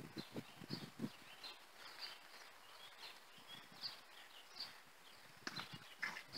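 A horse's hooves thudding on a sand arena at the canter: a run of beats in the first second, then again near the end as it takes off over a small jump. Small birds chirp throughout.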